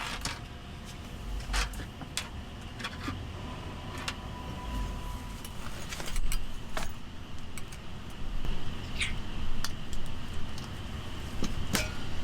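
Scattered clicks, clinks and knocks of small objects being handled, about ten spread irregularly, over a steady low rumble.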